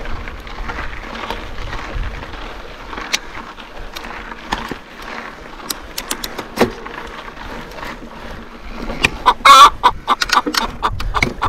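Mountain bike rattling over rough rocky ground, with tyres and frame knocking. From about nine seconds in, the disc brakes squeal: first one loud, wavering squeal, then short repeated squeals about four a second.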